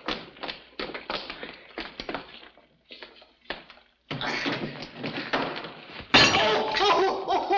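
A quick run of clattering knocks and crashes, like objects tumbling and falling to the floor. After a short lull there is a rushing noise, and loud voices join it near the end.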